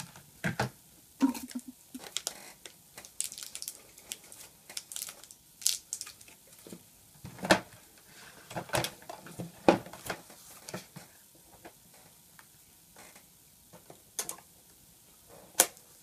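Plastic clicks, knocks and rattles of a keyboard and its palm rest being handled, turned over and fitted together, irregular, with a few sharper knocks.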